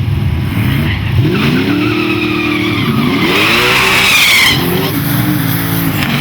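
Drag race car engine at full throttle, its pitch climbing and dropping back several times as it shifts up through the gears. A high-pitched sound rides over the engine between about three and four and a half seconds in.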